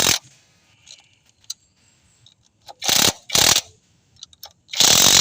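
A power tool run in four short bursts, driving in the injector hold-down bolts on a diesel engine, with small clicks between the bursts.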